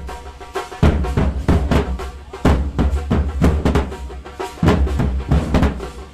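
Music with heavy drumming: clusters of fast drum strikes over a deep bass, the pattern repeating about every two seconds.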